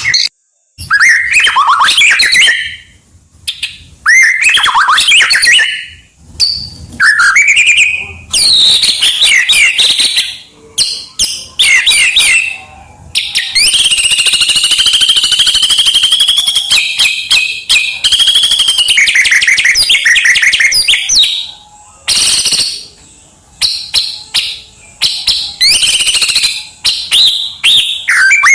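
White-rumped shama singing loudly in varied phrases packed with mimicked songs of other birds: clear whistles, sweeping glides and rapid trills, broken by short pauses, with one long unbroken stretch in the middle.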